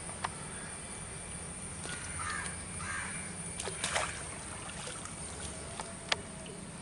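Quiet pond-side sounds as a speared tilapia is drawn in by hand on the spear line: a few sharp clicks from the line and gun handling, and light water movement. There are harsh bird calls about two to three seconds in.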